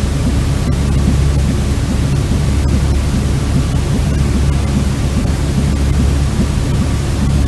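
Steady white noise for lulling a baby to sleep: a loud, even hiss with most of its weight in a low rumble, unchanging throughout.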